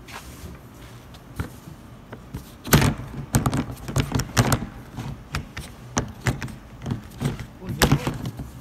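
Irregular knocks and thumps on a plastic water tank and its lid, starting about three seconds in.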